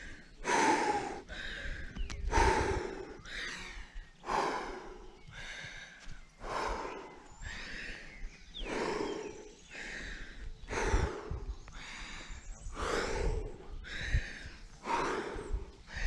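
Rock climber breathing hard from the exertion of climbing, a loud breath roughly every second.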